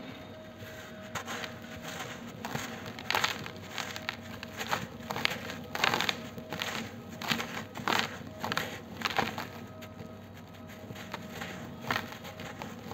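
Dry, grainy moulded dust balls crushed and crumbled by hand into a basin of loose powder: irregular crunching and crackling, densest in the middle, as the lumps break and the powder pours through the fingers.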